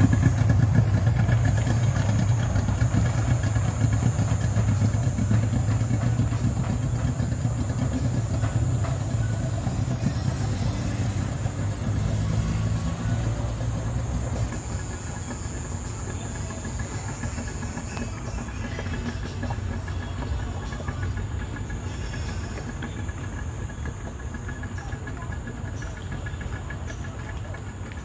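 Engine running at low revs with a steady low hum, louder for the first half and easing off about halfway through.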